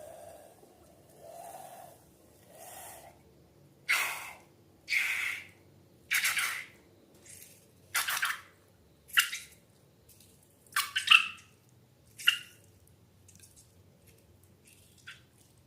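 Wet slime squelches and pops, a run of separate squishy sounds about once a second, some with a short squeak, dying away after about twelve seconds.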